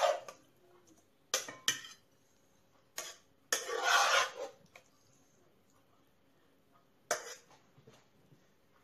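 Metal spoon scraping and knocking against a frying pan as pasta is scooped out and served onto a plate: a few sharp clicks, the first about a second and a half in, a longer scrape around four seconds in, and another knock about seven seconds in.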